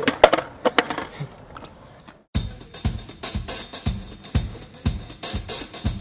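A few sharp clacks of a skateboard on concrete in the first second, then a drum-kit beat with hi-hat, snare and kick drum cuts in suddenly a little over two seconds in and keeps a steady groove.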